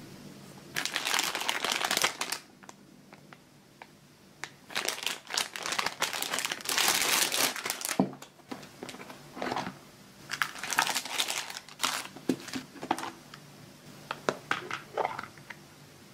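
Clear plastic packaging bag crinkling in bursts as a plastic lunch box is unwrapped. A sharp knock comes about eight seconds in, followed by shorter crinkles and light clicks of hard plastic lids and containers being handled.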